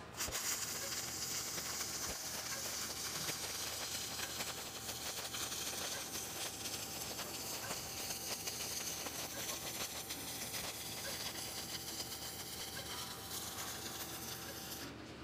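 Flux-cored arc welding on a steel railing: the arc strikes just after the start and burns with a steady crackling hiss, cutting off near the end.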